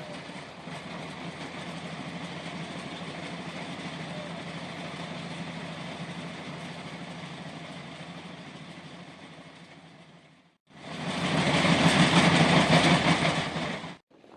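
An engine running steadily with a low hum. After a sudden cut about ten and a half seconds in, a much louder rushing noise follows and stops abruptly near the end.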